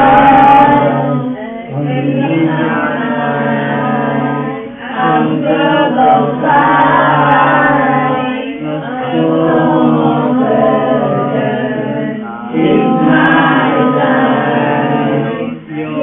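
A group of students singing durood, blessings on the Prophet, together in sung phrases of a few seconds each with short breaths between them.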